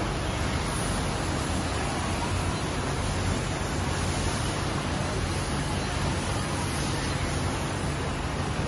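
Steady din of a garment factory floor: many industrial sewing machines running at once, heard as a continuous even noise with a low hum underneath.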